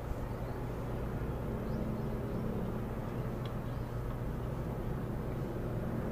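Steady low mechanical hum, even throughout, with a few faint, brief high chirps over it.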